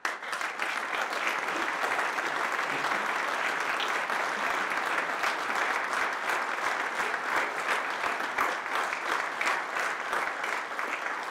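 An audience applauding: a steady run of many hands clapping, fading away near the end.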